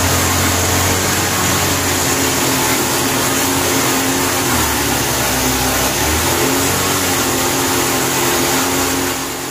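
Homemade excavator's engine running steadily at speed. Its pitch dips for a second or two midway, then rises again, and the sound fades out near the end.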